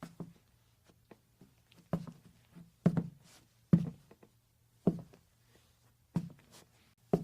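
Slow footsteps on a wooden floor, about six heavy steps at roughly one a second, each a dull knock followed by small taps and creaks of the boards.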